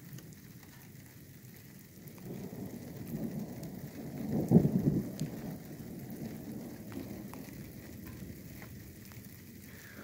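Distant thunder rumbling low, swelling from about two seconds in to its loudest near the middle and then dying away, with light rain falling and a few drops ticking.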